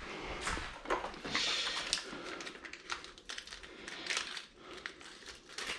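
Scattered light clicks and short bursts of rustling as things are handled and moved by hand.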